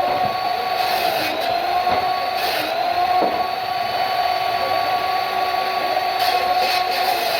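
Woodworking shop machinery running with a steady motor whine over a hiss, its pitch sagging slightly and recovering a few times.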